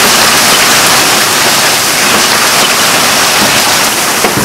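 Hail and heavy rain pelting down in a loud, steady hiss.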